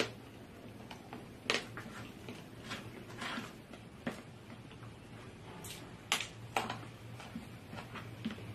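Close-up eating sounds of a person eating rice and fish with her fingers: wet chewing and lip smacks, with a few sharp clicks at irregular intervals over a steady low hum.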